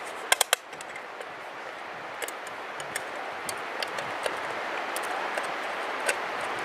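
Small metal clinks and ticks of a bolt, washer and nut being fitted by hand on a Weber Smokey Joe grill, over a steady hiss. Two sharp clinks come about half a second in, then lighter scattered ticks.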